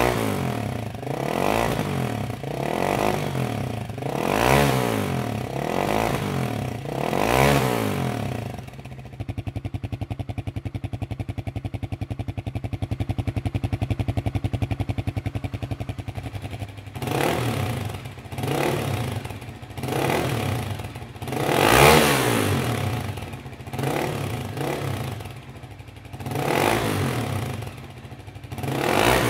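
Loncin Guerrero YF300 motorcycle's single-cylinder 300cc four-stroke engine being free-revved in a string of short blips, each rising and falling in pitch. About nine seconds in it drops to a steady idle for about eight seconds, then the blips start again, the strongest near the middle of the second run.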